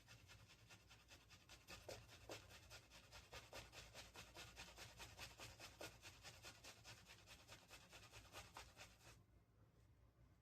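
Synthetic shaving brush working shaving-soap lather in quick, even strokes, several a second, a faint soft scratching and swishing that stops about nine seconds in.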